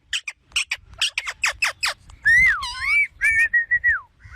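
Indian ringneck parakeet calling and whistling: a quick run of sharp, falling chirps for about two seconds, then a whistled phrase that swoops down and back up and ends in a string of short, even notes.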